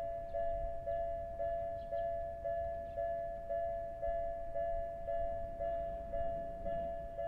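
Japanese railway level-crossing warning bell ringing, a two-note ding repeated about twice a second, each stroke fading quickly: the signal that a train is approaching and the crossing is closed.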